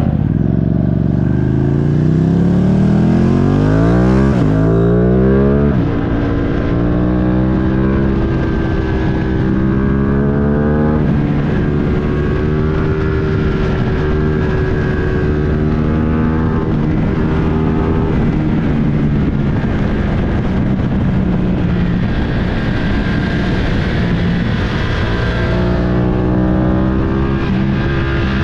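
Ducati Streetfighter V2's 955 cc V-twin engine heard from the rider's seat, revving up through the gears for the first six seconds with a gear change about four seconds in. It then runs at a fairly steady speed with small rises and falls in revs, and revs up again near the end.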